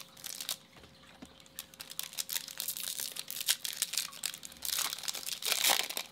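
Foil wrapper of a Topps Chrome trading-card pack being torn open and crinkled in the hands, a run of crackles that grows denser and is loudest near the end.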